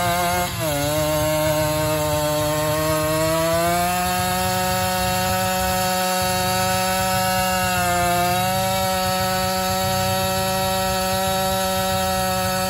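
Tuned Simson two-stroke engine held at high revs during a burnout, the rear tyre spinning on the asphalt. The pitch drops briefly about half a second in, climbs back over a few seconds, dips again about eight seconds in, then holds steady.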